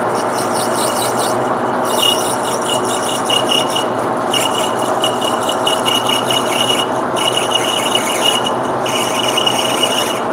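A lathe cutting tool squealing against a spinning brass bar as the bushing is cut, in five stretches of one to three seconds with short breaks, the first one fainter. The lathe runs with a steady hum underneath.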